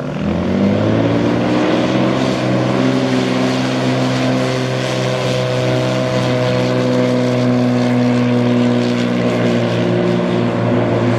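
Propeller aircraft's piston engine throttling up sharply about half a second in, then running steadily at high power, its pitch creeping up a little further.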